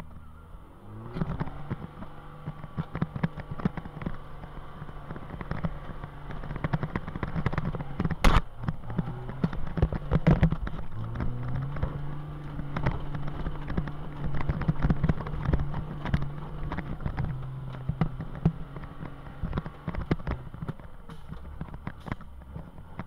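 IVECO trial truck's diesel engine working under load, heard from inside the cab, its pitch rising with the throttle about a second in and again around eleven seconds. Constant rattles and knocks from the cab and body as the truck crawls over rough sand, with one sharp bang about eight seconds in.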